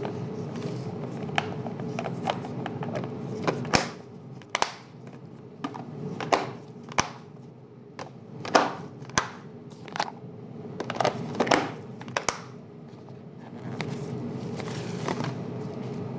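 Plastic food containers with snap-on lids knocking and clicking as they are handled and stacked, a dozen or so sharp knocks, over a steady low hum that drops away through the middle stretch.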